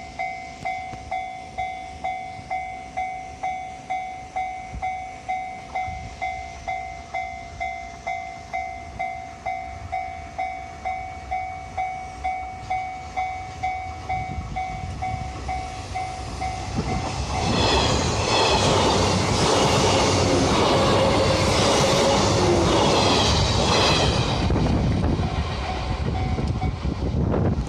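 Japanese level-crossing warning bell dinging steadily about twice a second. A train then passes loudly over the crossing for about seven seconds while the bell keeps sounding. The bell stops near the end.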